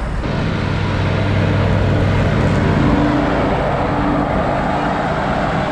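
Engine running steadily, getting a little louder toward the middle.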